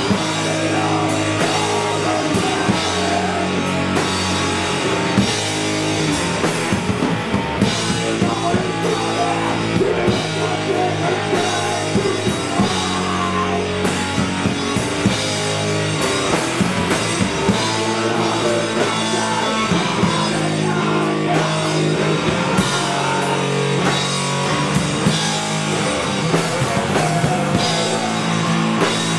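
A live doom metal duo playing loud and steady: heavy electric guitar over a drum kit with frequent cymbal and drum hits.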